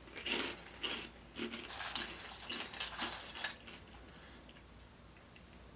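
Crisp crackling and crunching of puffed microwave pork rinds, a run of irregular crunches over the first three and a half seconds that then dies away.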